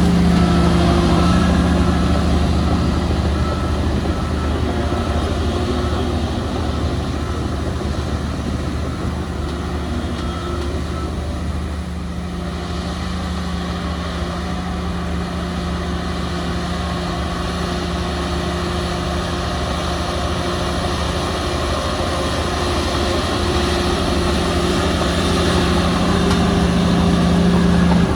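Heavy diesel construction machinery engine running steadily with a deep drone, getting a little quieter around the middle and louder again toward the end.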